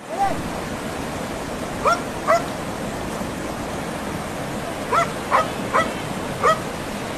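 A dog stranded in a flooded river yelping and whining in distress: seven short, high cries in a rising and falling pitch, one at the start, two around two seconds in and four in quick succession near the end. Under them runs the steady rush of the fast-flowing muddy water.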